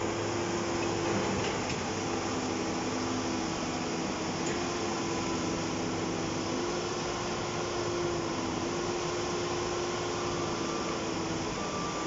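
JCB tracked excavator's diesel engine running steadily, a continuous mechanical hum with a steady tone that shifts slightly in pitch now and then.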